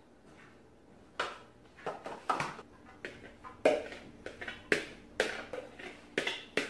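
A serving spoon knocking and scraping against a plastic mixing bowl and glass dishes as cooked ground meat is portioned out. After about a second of quiet, a string of sharp knocks comes irregularly, roughly two a second.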